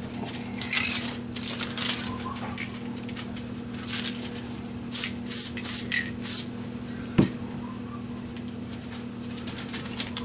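Aerosol can of multi-purpose spray adhesive giving short hisses, with four quick squirts in a row about five seconds in, and a single sharp knock shortly after. A steady low hum runs underneath.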